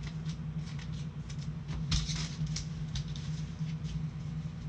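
Football trading cards being shuffled and flicked through by hands in nitrile gloves: quick, irregular light clicks and rustles of card stock over a steady low hum.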